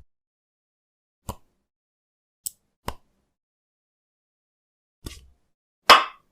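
Stop-motion foley: about five short, separate taps and clicks with dead silence between them, made with small kitchen utensils for the miniature woodworking. The loudest and fullest knock comes near the end.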